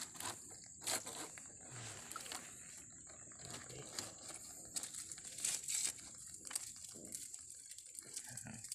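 Hands handling a live mud crab and tying it with a thin plastic strip: rustling and crinkling with scattered light clicks. A steady high-pitched whine runs underneath.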